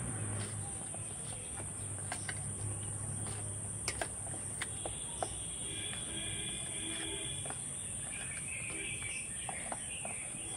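Steady high-pitched drone of crickets, with a few light clinks of a steel spoon against a steel bowl as fried khaja are turned in sugar syrup.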